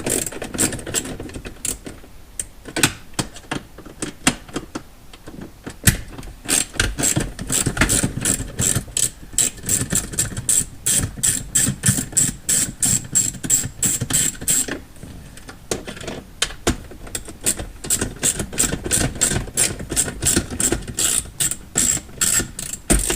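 Ratchet wrench with a 7 mm socket clicking as it backs out console screws. There are a few scattered clicks at first, then two long runs of about four clicks a second with a brief pause between them, a little past halfway.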